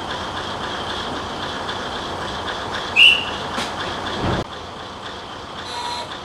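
Kominato Railway KiHa 200 diesel railcar standing at a station, its engine and running noise steady. A short high squeal comes about three seconds in, and a low thud follows about a second later, after which the noise is quieter.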